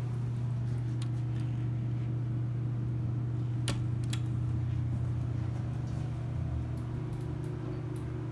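Dover hydraulic elevator running with a steady low hum inside the car. Two sharp clicks a little before the middle, as a car call button is pressed.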